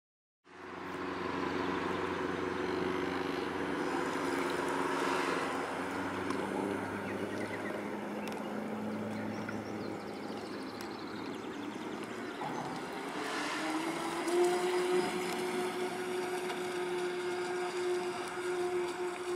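Twin 540 electric motors of a Graupner Salina RC model boat running at speed, a steady whine that starts about half a second in; about two-thirds of the way through the pitch rises and holds higher as the throttle is opened.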